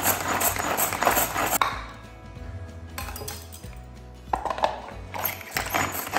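Background music over the rattling whirr of a hand pull-cord vegetable chopper, its cord yanked repeatedly to chop onions, for the first second and a half. More rattling and clatter comes from about four seconds in.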